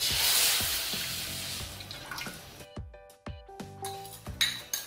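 Fermented fish liquid (nam pla ra) poured from a bowl into an aluminium wok, a splashing hiss that starts suddenly and fades over about two and a half seconds. Soft guitar background music plays throughout.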